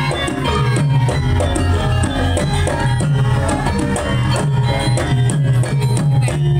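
Javanese gamelan music accompanying a Lengger dance: a drum beating a steady rhythm under a busy melody of struck metal percussion.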